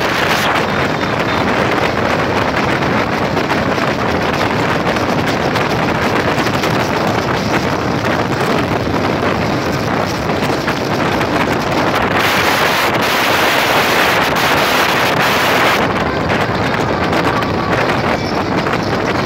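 Wind rushing over the microphone of a phone carried on a moving motorcycle, a loud steady rush with road and engine noise under it. It grows louder and hissier for about four seconds starting some twelve seconds in.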